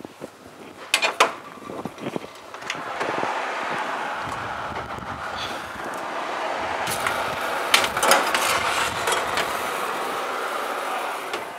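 A metal baking tray knocking and clattering as it is handled and slid onto an oven rack, with a few sharp knocks about a second in and a cluster of clanks about eight seconds in. A steady rushing noise runs from about three seconds in.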